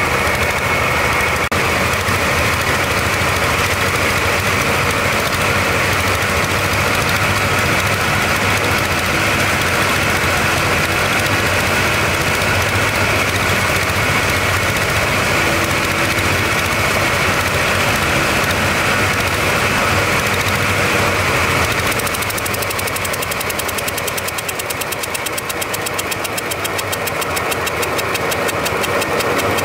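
Engine-powered rice thresher running steadily. After about 22 seconds its sound eases off a little, then builds back near the end.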